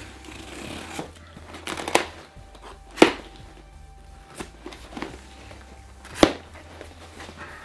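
A knife cutting and scraping along the packing tape of a cardboard box, with sharp knocks and clicks from handling the box. The loudest knock comes about three seconds in, and another comes near the end.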